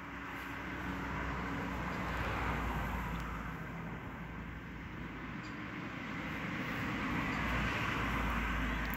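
Passing road or rail traffic: a steady rushing noise with a low rumble and a faint hum, swelling about a second in and again near the end.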